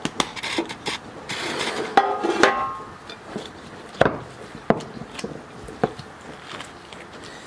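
Kitchen utensils and cookware being handled: a series of scattered knocks and clatters, with a short scraping hiss between about one and a half and two and a half seconds in.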